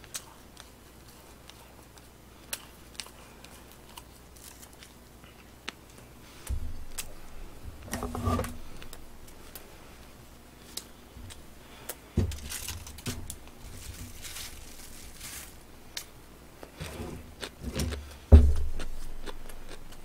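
Handling sounds at a table while eating: scattered small clicks, a rustle of tissue paper about halfway through, and a few low bumps, the loudest a single thump near the end.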